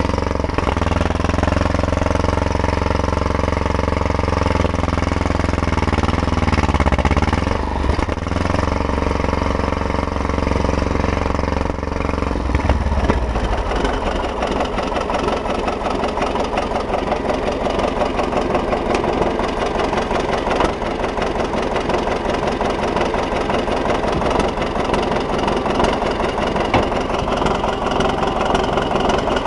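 T-170 crawler bulldozer's engine being started after a repair and running steadily. About 13 s in the steady low drone gives way to a rougher, busier running sound that carries on.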